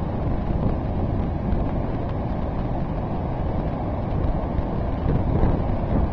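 Heavy surf breaking on the beach after a typhoon, a steady low rumble with wind buffeting the microphone.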